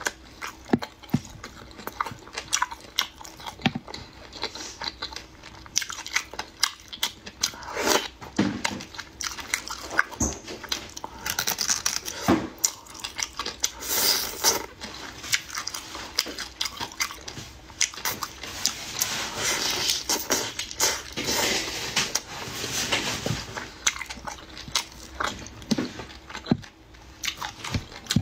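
Close-miked eating of oily, chili-oil-coated food: wet lip smacks, clicks and chewing, with longer sucking sounds around the middle as a piece is held to the lips.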